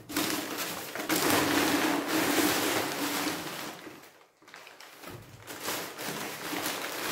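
Packaging rustling and crinkling in uneven bursts as a parcel is unwrapped by hand to get at a potted orchid, with a brief pause about four seconds in.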